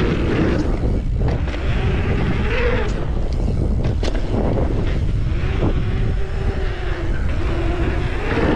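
Wind buffeting the microphone as a mountain bike rolls fast downhill, with tyre rumble over the track and a few sharp knocks from bumps and ramps.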